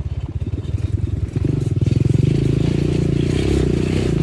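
ATV engine and exhaust running under throttle as the machine moves off, getting louder and steadier about a second and a half in as it picks up revs.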